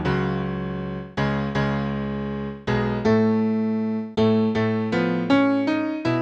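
Piano playing slow chords over a low bass line, each chord struck and left to ring as it fades, with a new chord roughly every half second to a second.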